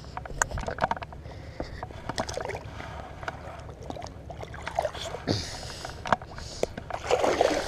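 Shallow water sloshing and a splash as a caught bass is let go into the shallows, among scattered clicks and rustles of handling.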